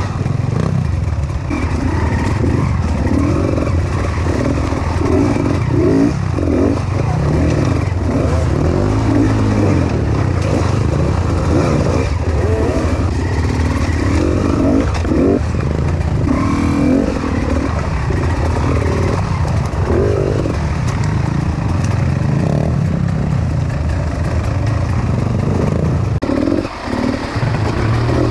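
Enduro dirt bike engine running hard on a rocky trail, the throttle opening and closing in repeated surges, with a short drop in revs near the end.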